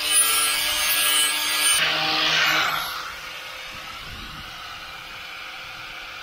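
Angle grinder with an abrasive disc running against a boat's propeller blades, sanding the metal clean for a fresh finish. It runs steadily, its pitch shifts about two seconds in, and it stops about three seconds in.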